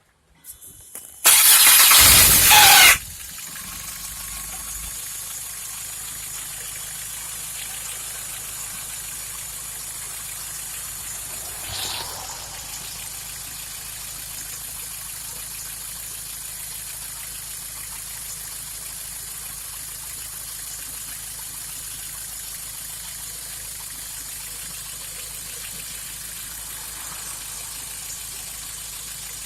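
VW MK4 Jetta being started: about a second in, the starter cranks with a loud screech for under two seconds, then the engine catches and idles steadily. The screech is the starter, which the owner thinks may need replacing.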